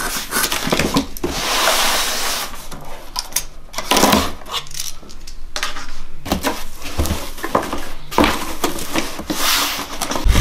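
Packing tape on a cardboard box being slit and ripped open, then the cardboard flaps pulled back, with rasping tape-tearing strokes, cardboard scrapes and a few sharp knocks.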